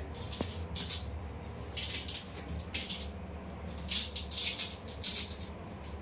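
Velcro-edged mosquito mesh being pressed by hand onto hook-and-loop tape along a window frame: a series of short scratchy rustles, about one a second, over a low steady hum.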